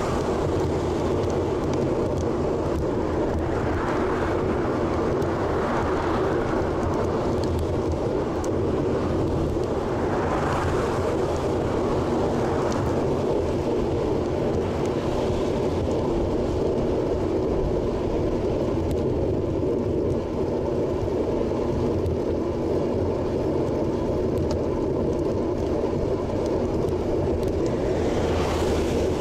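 Steady wind and road rumble on an action camera riding on a moving bicycle. Motor vehicles swell past on the highway alongside, around 4, 6, 10 and 13 seconds in and again at the very end.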